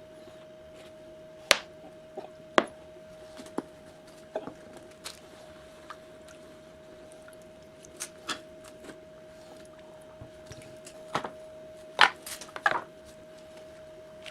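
Irregular sharp clicks and knocks of tools and motor parts being handled, over a steady faint hum. The loudest knocks fall about a second and a half in, soon after, and about twelve seconds in.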